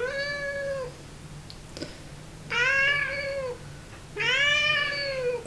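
Black domestic cat meowing three times, each a long drawn-out meow of about a second, the first sliding up in pitch at its start.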